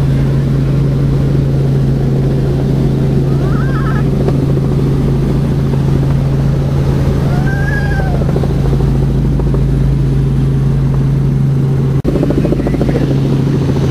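Light helicopter's engine and rotors running steadily in flight, heard from inside the cabin as a loud, constant low hum with rumble, briefly cutting out about twelve seconds in.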